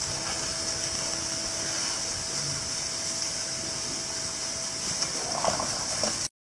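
Asian elephant chewing a whole watermelon, with a few wet crunches about five seconds in, over a steady high-pitched hiss. The sound cuts off suddenly just before the end.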